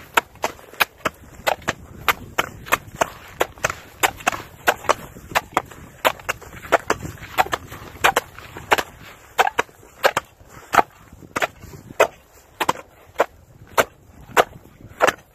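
A steel shovel blade on a long pole and an ice chisel chopping down into lake ice, two or three sharp, uneven strikes a second from the two tools together, each a hard crack of metal on ice.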